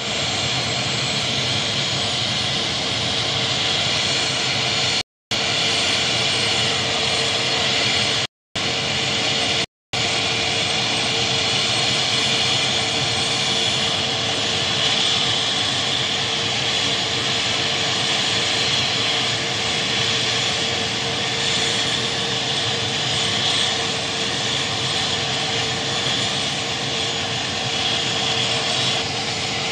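Mi-17 military transport helicopter running on the ground: a steady, loud whine of its turbine engines over a constant hum. The sound cuts out briefly three times in the first ten seconds.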